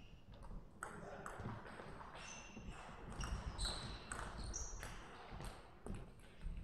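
Table tennis ball clicking back and forth off the rackets and table in a fast rally, a sharp tap every half second or so, with a few short high squeaks in between.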